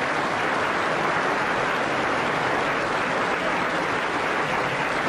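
Audience applauding, an even clatter of many hands that follows a punchline.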